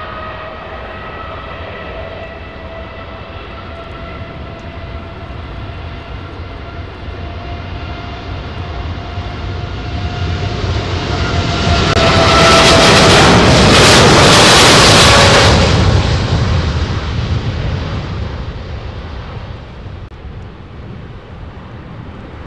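Boeing 777X's two GE9X turbofans at takeoff thrust: a steady fan whine over a roar. The roar swells as the jet rolls past, is loudest about halfway through, and then fades as it climbs away. The whine drops slightly in pitch as it goes by.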